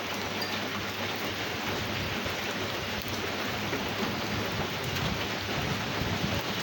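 Rain falling steadily in a storm, an even, dense hiss.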